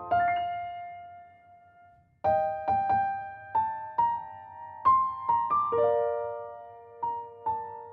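Background music: a slow keyboard melody of single notes that ring and fade. It dies away about a second in and picks up again about two seconds in.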